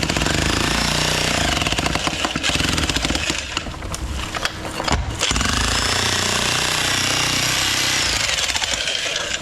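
Power breaker (jackhammer) hammering concrete in rapid blows, breaking out concrete around a drain gully. It runs in two long stretches with a brief stop about five seconds in.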